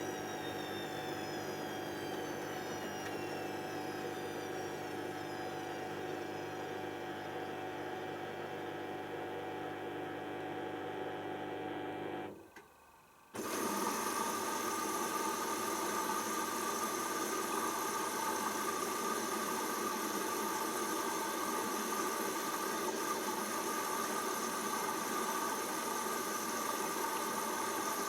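Hoover DYN7144XD1 washing machine running with a steady motor hum and whine; a high whine falls in pitch over the first few seconds. About twelve seconds in, the sound drops away for about a second, then comes back abruptly as a louder, steady hum.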